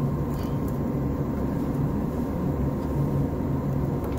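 Steady low mechanical hum, with a couple of faint light clicks early on as wiring is handled.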